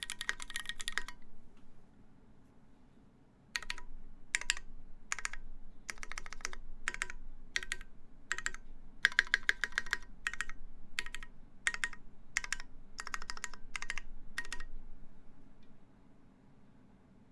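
Mechanical keyboard with lubed linear Cherry MX Black switches, 78g springs, a stainless steel plate and GMK keycaps being typed on. Typing stops about a second in, resumes after a pause of about two and a half seconds in short runs of keystrokes like typed words, and stops near the end.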